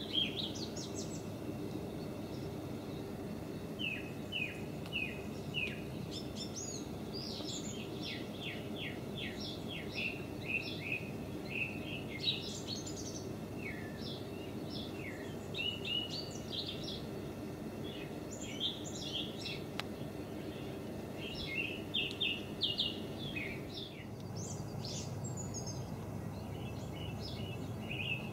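Wild birds chirping and calling, short sweeping notes coming in scattered bursts over a steady low background noise.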